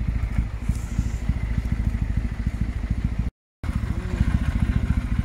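Kawasaki W650's air-cooled parallel-twin engine running at a steady idle, an even, rapid beat of exhaust pulses. The sound cuts out for a moment about three seconds in.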